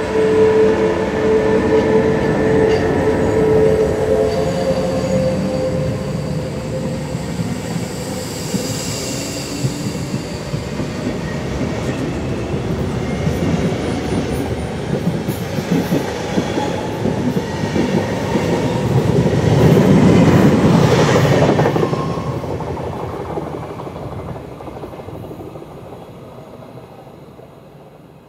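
SBB Re 460 electric locomotive hauling a passenger train away from the station. First come its steady tones, some rising in pitch, for the first few seconds. Then the coaches' wheels roll past on the rails, loudest about twenty seconds in, and the sound fades away as the train leaves.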